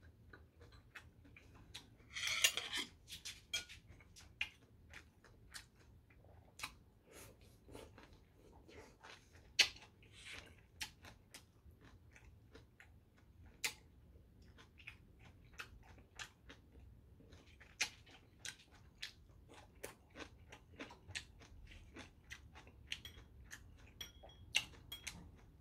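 Close-miked eating: chewing, with metal chopsticks clicking against ceramic bowls in many sharp, scattered clicks. There is a longer, louder rasping noise about two seconds in.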